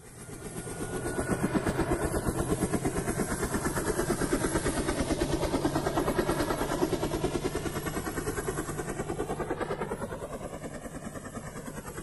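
Helicopter rotor chopping with a fast, even beat. It fades in over the first second or so and eases off a little toward the end.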